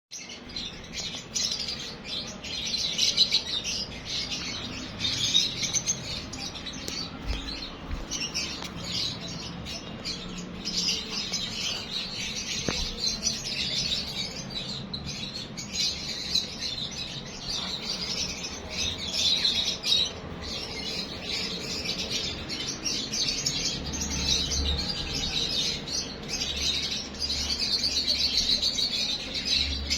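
Many small birds chirping and chattering all the way through, a dense chorus of short overlapping calls.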